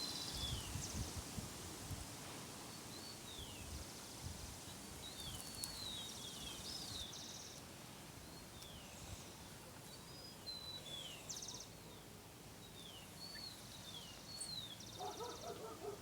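Small birds calling faintly: many short, high chirps that slide downward in pitch, repeated on and off, with a few short buzzy notes, over a soft outdoor hiss. A lower call comes in near the end.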